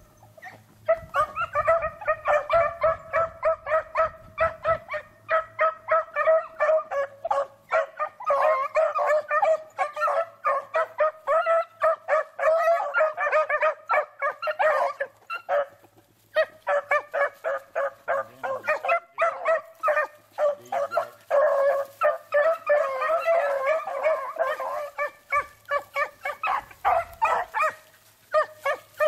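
A pack of beagles in full cry, many overlapping bays and chops in quick succession as they run a rabbit's scent trail. The chorus breaks off briefly about sixteen seconds in and again near the end.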